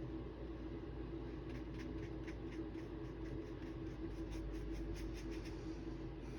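Light scratchy strokes of an art tool working on a sketchbook page, a quick even run of about four a second in the middle, over a steady low hum.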